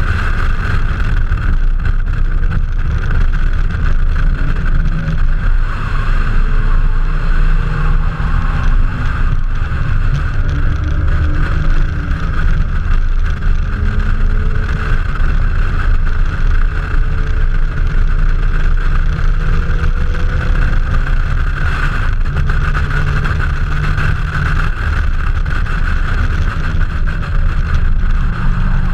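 Toyota Celica Supra's 7M-GE straight-six engine running hard at speed with a continuous, steady sound, its pitch drifting slowly up and down as the revs change.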